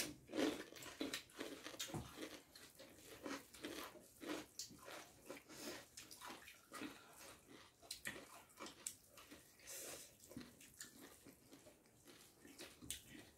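Eating by hand: wet, squishy sounds of rice being mixed with curry by fingers on steel plates, with chewing and lip smacks, a string of short irregular clicks and smacks.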